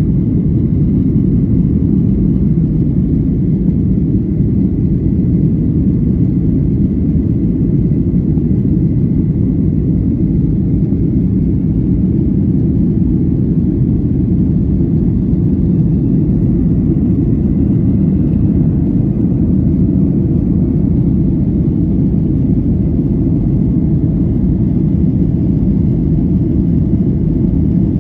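Steady low rumble of an airliner's passenger cabin: engine and airflow noise, even throughout, with a faint thin tone above it.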